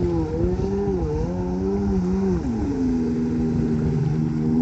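Sea-Doo 580 jet ski's two-stroke twin engine running under throttle, its pitch rising and dipping with the throttle, then dropping to a steadier, lower note about halfway through.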